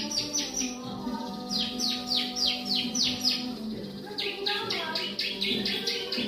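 Ciblek (prinia) song: bursts of rapid, high, down-slurred notes, about five a second, repeated in runs of several seconds.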